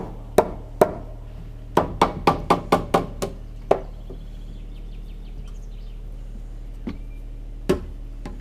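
Hammer blows on timber as a crane-hung beam is fitted into a wooden wall frame: sharp single knocks, a few spaced strikes, then a quick run of about seven at about four a second, then a few more spread out near the end. A steady low hum runs underneath.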